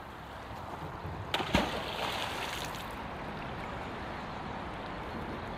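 River water rushing steadily, with two sharp knocks about a second and a half in.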